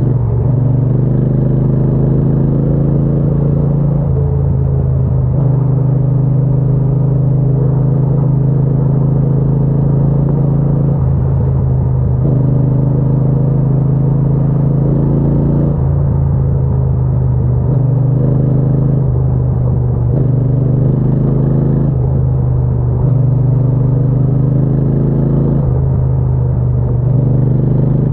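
Triumph Bonneville T120's parallel-twin engine running steadily at an even pitch, with a deep exhaust rumble.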